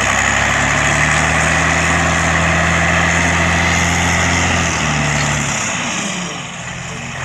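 A truck engine running steadily, then easing down in pitch and level about five seconds in.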